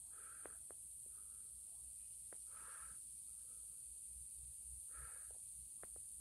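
Faint outdoor ambience: a steady high hiss, with a few brief soft calls and clicks scattered through it.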